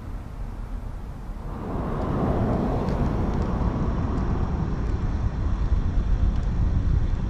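Loaded Kenworth W900B logging truck's diesel engine running with a low, steady rumble that grows louder and fuller about a second and a half in.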